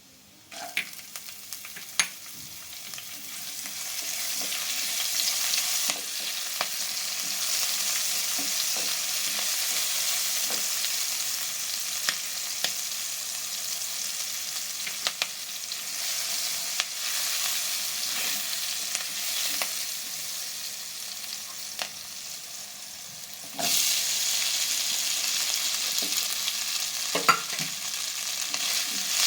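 Food sizzling in hot oil in a pan while being stirred, with occasional sharp clicks of a utensil against the pan. The sizzle builds over the first few seconds, eases off, then jumps louder again about 24 seconds in.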